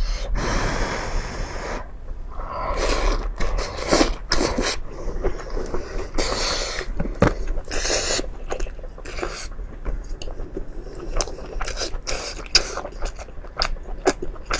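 Close-miked chewing of a mouthful of meat: wet smacking and many short clicks of lips and teeth, with a few longer noisy passes of breath or slurping.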